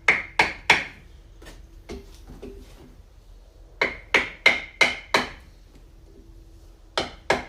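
Hammer blows on a block of timber, tapping a steering bearing down onto the fork stem. Three hard knocks at the start, two lighter taps, then a quick run of about six blows and two more near the end.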